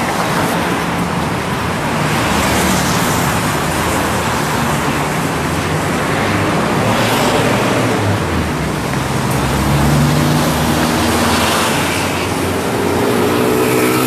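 Road traffic: vehicles running past with a low engine hum that shifts in pitch, over a loud, steady rushing noise.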